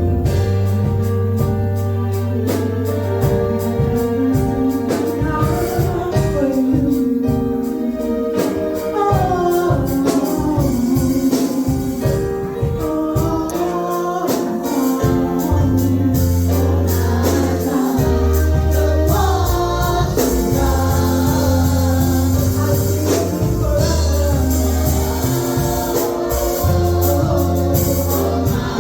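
Gospel song with lead and choir singing over bass, keyboard and a steady beat.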